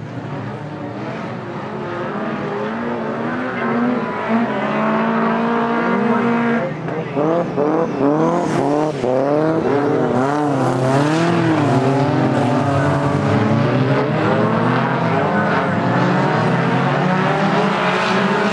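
A pack of 1660 Modified stock cars racing, several engines running hard at once and revving up and down in pitch as the cars lift and accelerate through the corners. The engines get louder about four seconds in and stay close and busy after that.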